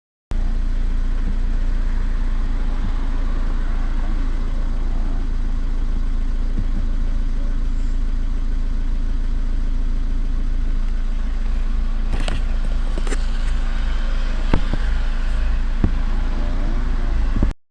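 Volkswagen Golf 6 1.6 TDI (CAYC/CAYB) common-rail diesel engine running steadily at idle, with a few sharp clicks in the last few seconds.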